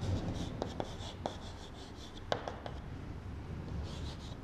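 Chalk writing on a chalkboard: scratchy strokes, with several short sharp taps as the chalk strikes the board.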